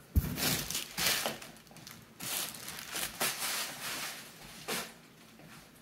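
Bubble-wrap and plastic packaging rustling and crinkling as it is handled, in uneven bouts with a few sharp crackles, the loudest just after the start.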